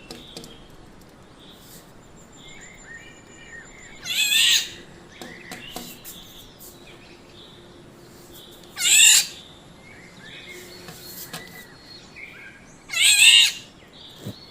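Black-naped oriole giving three loud, harsh calls about four to five seconds apart, each about half a second long, with fainter bird notes in between.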